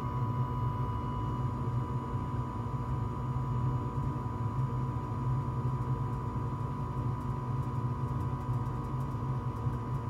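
Rheem gas furnace running just after ignition: its inducer motor and burners make a steady low rumble with a steady high tone over it. The circulating blower has not come on yet while the heat exchanger warms up.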